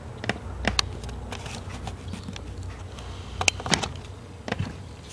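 Scattered light clicks and taps from a handheld camcorder being handled while it zooms in, over a low steady hum.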